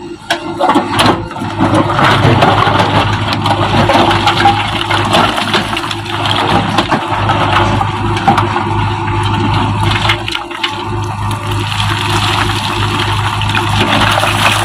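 JCB backhoe loader's diesel engine running with a steady low hum, under a loud rushing noise with many scattered knocks and clatter that grows louder about half a second in.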